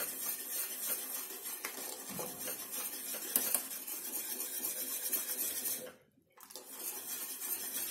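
Wire whisk stirring milk in a stainless steel pan, scraping and clicking against the metal as custard-powder mix is poured in. The stirring stops briefly about six seconds in, then starts again.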